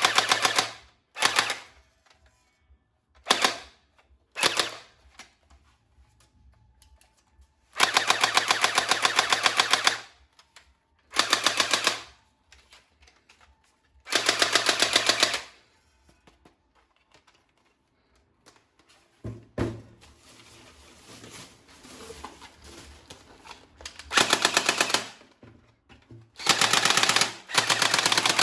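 Automatic M416-style toy gun firing in short bursts of rapid, even clicks, about nine bursts of up to two seconds each, separated by pauses. Fainter clattering falls between the bursts in the middle stretch.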